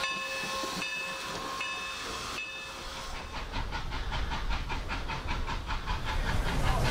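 Norfolk & Western 611 steam locomotive pulling away. Its bell rings about once every 0.8 s over a steam hiss, and about halfway through the rhythmic exhaust chuffs take over at about four beats a second.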